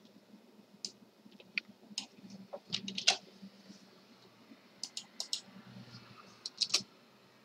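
Computer mouse and keyboard clicking: scattered single clicks and short quick runs of keystrokes, as a command is selected, copied and entered into a terminal.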